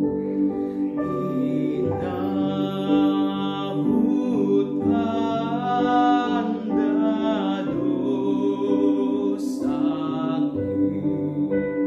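A teenage boy singing solo over sustained backing chords, his voice coming in about two seconds in.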